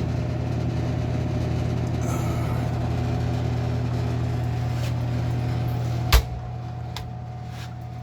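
Steady low hum of a True TSSU-60 sandwich prep cooler's refrigeration unit running. A single sharp thump comes about six seconds in, after which the hum is a little quieter.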